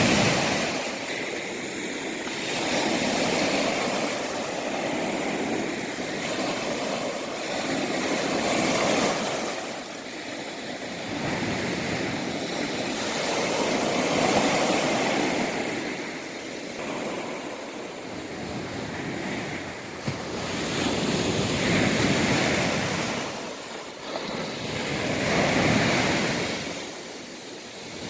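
East Sea waves breaking and washing ashore. The surf swells and fades again every few seconds.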